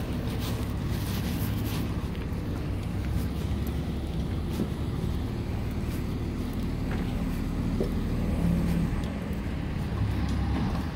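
Heavy diesel engine of construction machinery running steadily, a low drone that holds at one pitch.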